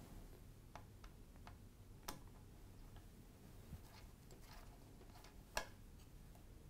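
A few faint, scattered clicks of a small Torx T5 screwdriver and tweezers against the tiny heat-sink screws as the screws are undone and lifted out. The sharpest click comes about five and a half seconds in.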